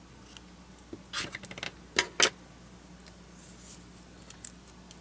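Washi tape being handled at a craft table: a quick run of small crackling clicks about a second in, then two sharp snaps a quarter second apart, and a few faint ticks near the end.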